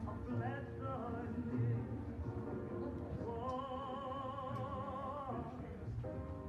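Music with a singing voice: a slow song, with one long note held with vibrato for about two seconds near the middle.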